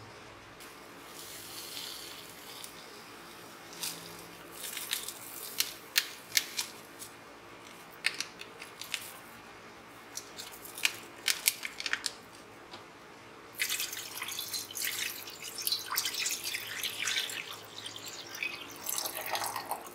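Scattered light ticks and rustles as gulaman (agar) jelly powder goes into a pot of sugar, then, about two-thirds of the way in, water pouring and splashing into the pot for several seconds.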